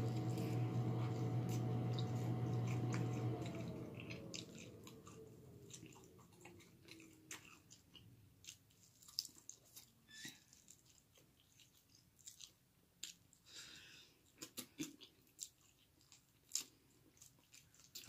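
A steady motor hum runs for the first few seconds, then winds down with a falling pitch and fades out. After that, close-up chewing of chicken wings is heard, with scattered small crunches and wet clicks.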